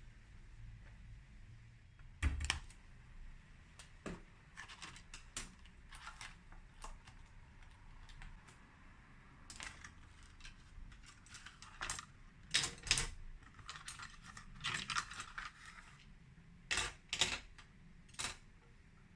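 Irregular light clicks and knocks, in uneven clusters, of hard objects being handled, with the loudest knocks about two seconds in and near the end.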